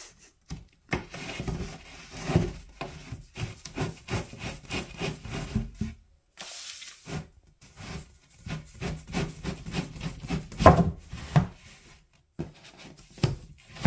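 Flat-pack kitchen cabinet parts being handled and fitted by hand: particleboard panels rubbing, scraping and knocking in an irregular run of short sounds, with one louder knock about ten and a half seconds in.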